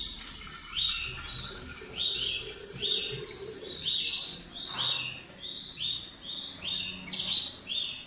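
A caged songbird chirping over and over, short high calls about twice a second, over the faint trickle of water being poured from a clay jug into a glass jar.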